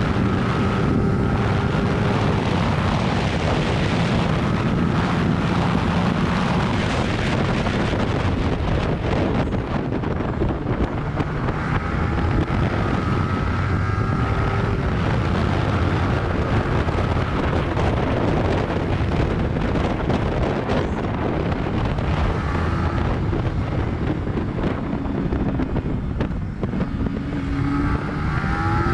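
Yamaha YZF-R15 single-cylinder sport bike engine running under way, buried in heavy wind noise on the rider's microphone. The engine pitch rises and falls through the gears, climbing again near the end.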